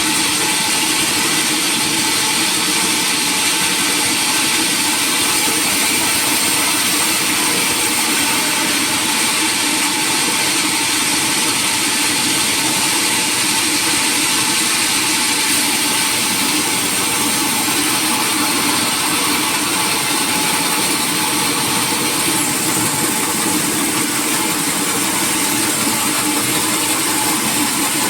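Sawmill machinery running steadily: an even mechanical drone with a steady high whine and no breaks.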